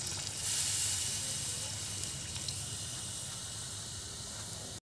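Water poured from a steel vessel into a steel kadai of chicken curry: a steady splashing gush that cuts off abruptly near the end.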